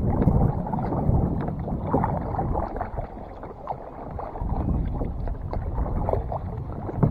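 Kayak paddle strokes dipping and splashing in the water, easing off for a moment about halfway through.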